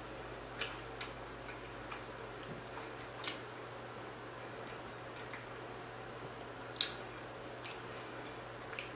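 Quiet eating with a fork from a plastic food tray: chewing and a handful of soft, scattered clicks, the loudest about seven seconds in.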